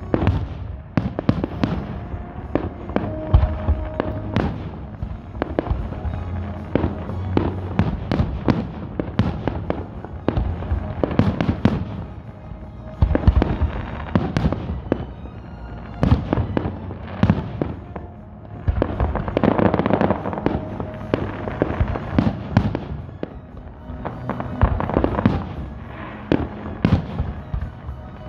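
Aerial fireworks display: shells launching and bursting in quick, overlapping succession, a dense run of bangs with their echoes ringing on between them.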